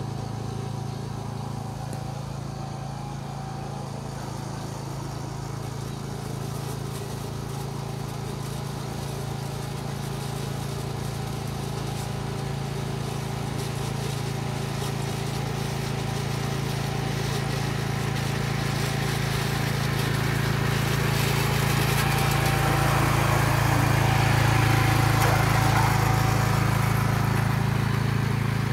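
Walk-behind petrol cylinder (reel) mower running steadily as it is pushed along, growing louder as it comes closer and at its loudest as it passes close by near the end.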